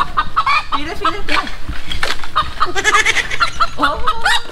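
Chickens clucking and squawking in a run of short calls, busiest about three seconds in, with indistinct human voices mixed in.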